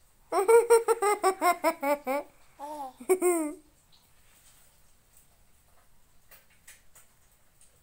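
A young child laughing: a quick run of high giggles for about two seconds, then two shorter rising-and-falling cries.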